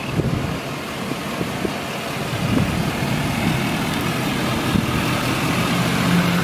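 A 2011 Ford F-450 truck's engine idling steadily, growing a little louder toward the end.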